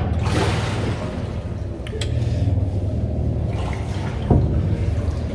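A boat's motor humming steadily as it travels along a flooded, brick-lined tunnel, with water sloshing and echoing off the arched walls. A sharp knock comes about four seconds in.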